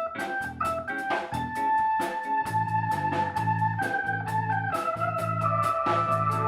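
Instrumental break of a slow blues song: an organ holds long notes and chords over a repeated bass line and steady drums.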